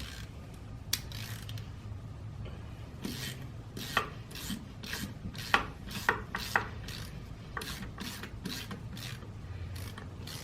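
Short rasping scrapes of something being rubbed or scraped by hand, irregular, about one or two a second, over a low steady hum.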